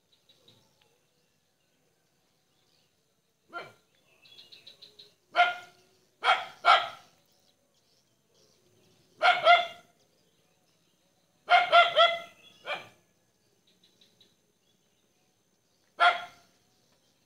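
A dog barking in short single and double barks at irregular intervals, about eight barks in all, with faint rapid chirping trills in the gaps between them.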